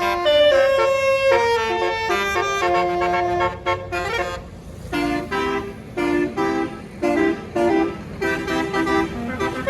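Telolet basuri horn, a tour bus's set of tuned horns, playing a tune. It holds a string of notes at changing pitches, then from about five seconds in gives a quick series of short repeated toots, two or three a second.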